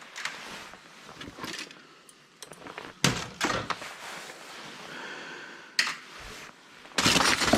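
Laptop parts being handled and set down: scattered sharp knocks and plastic clatters, the loudest about three seconds in, with a denser clatter near the end.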